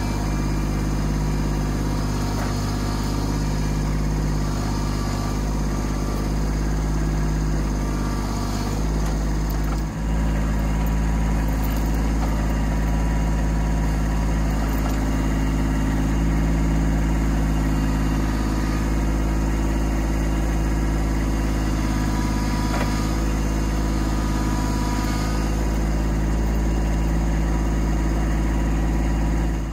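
Kubota B2601 compact tractor's three-cylinder diesel engine running steadily while the loader tries to drag a chained log on a slope. The level dips briefly about ten seconds in, and the engine note changes after it.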